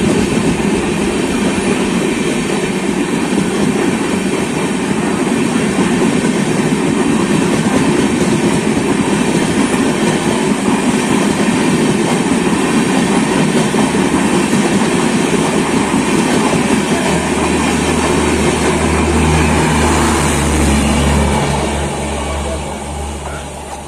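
An express train of LHB passenger coaches running past on the adjacent track, with a loud, steady rush of wheels on rail. A low hum joins as its last coach goes by, and then the noise fades away.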